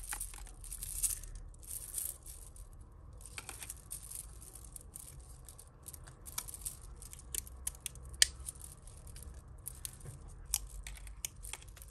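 Costume jewellery being handled and sorted by hand: scattered light clicks and chinks of beads and metal pieces, with brief rustles, over a low steady hum.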